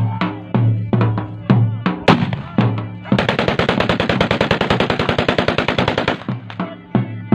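Dhol drum beating a steady rhythm, cut off about three seconds in by a continuous burst of rapid automatic gunfire lasting about three seconds, after which the drumming goes on.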